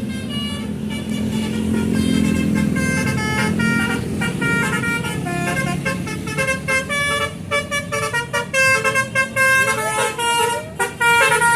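Telolet basuri multi-tone musical bus horn playing a tune of stepped notes, held longer at first and quicker and choppier from about seven seconds in, over a low rumble.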